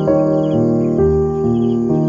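Calm instrumental background music, sustained keyboard notes changing about twice a second, with faint repeated insect chirps above it.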